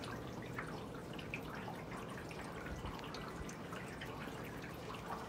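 Rainwater dripping and trickling from a house gutter: many small, irregular drips over a steady low background.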